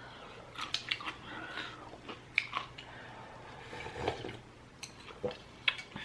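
Close-up chewing of udon-style noodles, with wet mouth smacks and clicks at irregular intervals.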